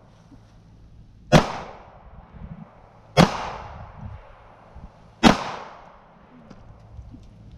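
Three pistol shots, about two seconds apart, each a sharp crack followed by a short echoing tail.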